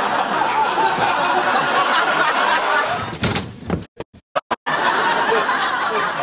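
Studio audience laughing, a dense continuous wash of many people's laughter. About four seconds in it breaks off for roughly a second into choppy gaps and short blips, then the laughter resumes.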